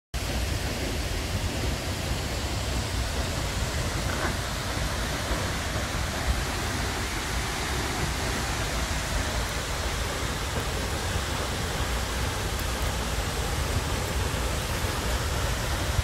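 Seljalandsfoss waterfall, a steady unbroken rush of falling water with a deep rumble underneath.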